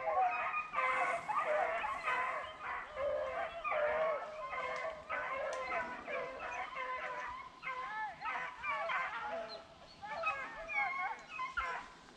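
A pack of beagles baying together in full cry, several dogs' voices overlapping continuously: hounds on a rabbit's scent, running the chase.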